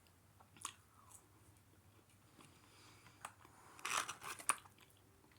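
A person chewing and biting food close to the microphone, with a few sharp crunches and a quick run of louder crunches about four seconds in.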